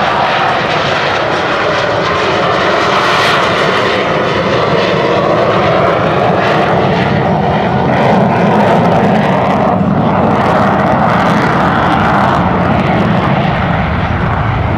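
Loud, steady jet engine noise from a USAF Thunderbirds F-16C Block 52 Fighting Falcon and its Pratt & Whitney F100 turbofan as the fighter climbs away.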